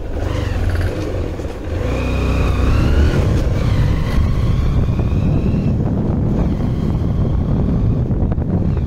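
Motorcycle engine running under way, with a dense low rumble of wind on the microphone. The engine note climbs twice as the bike accelerates.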